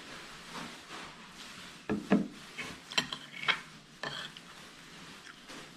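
A glass knocks down onto a wooden table about two seconds in, then a metal fork clicks and scrapes against a plate several times while scooping scrambled eggs.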